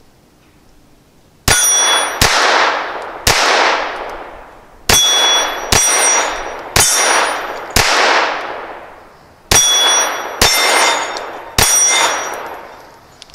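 Ten shots from a Ruger LCP II .22 LR semi-auto pistol, fired at roughly one a second, each with a decaying echo, most followed by the high ring of a steel gong being hit. The pistol cycles through the whole mixed magazine without a jam.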